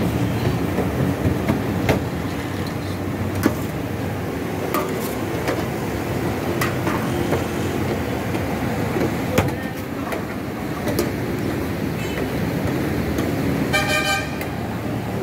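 Street ambience with steady traffic noise and occasional sharp clinks. A vehicle horn toots briefly near the end.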